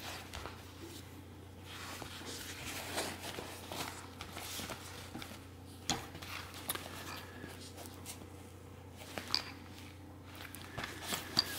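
Quiet rustling and handling of a fabric tool roll, with a few short clicks of metal tools knocking against each other as they are tucked into its pockets.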